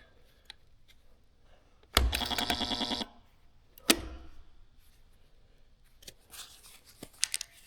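HTP QuickSpot 2 resistance spot welder firing a weld on the pulse setting: an electrical buzz about a second long with a rippling level, starting about two seconds in. A sharp click follows about a second later, and faint clicks come near the end.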